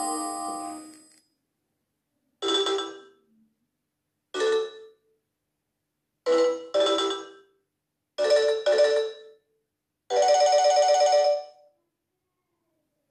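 Nokia 6300 ringtones playing through the phone's own speaker. The end of one tune fades out in the first second. Then come short, chime-like electronic tones with gaps of about two seconds: two single notes, then two quick pairs, then a longer fluttering note near the end.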